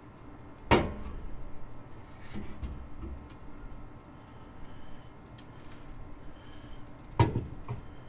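Two sharp knocks about six and a half seconds apart, with a few softer knocks between them, from parts being handled while fitting a train-horn air tank.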